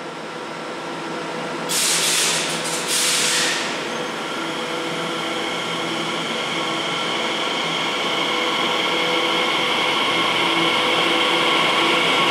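Class 345 Aventra electric multiple unit pulling out of an underground station platform. Sharp hisses of air come between about two and three and a half seconds in. Under them is a steady whine from the traction equipment that grows louder as the train moves off.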